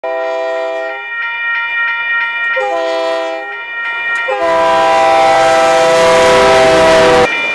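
Freight diesel locomotive's air horn sounding three blasts at a level crossing, two short and then one long, the long one joined by the rumble of the locomotive passing. A crossing bell rings steadily underneath and carries on after the horn stops.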